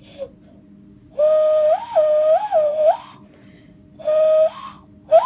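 Hand whistle blown through two cupped hands: a hollow, steady note held for nearly two seconds with two quick jumps up in pitch as the top hand is opened. This is followed by a shorter note and a brief upward chirp near the end.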